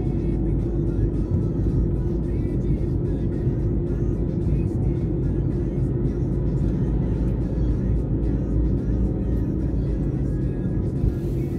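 Steady low rumble of a car driving at city speed, heard from inside the cabin, with music playing over it.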